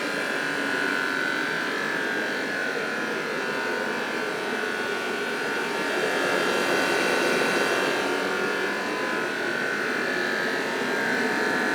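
Sealey AB458 kerosene-fired space heater running: a steady, noisy rush from its fan and burner, with a high-pitched whine held over it.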